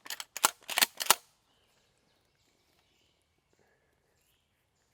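A quick run of four or five sharp clicks and knocks in the first second or so.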